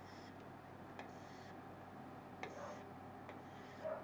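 Faint taps of a stylus touching an interactive whiteboard screen, each followed by a short scratchy swish as it draws a line, four or five times over the few seconds.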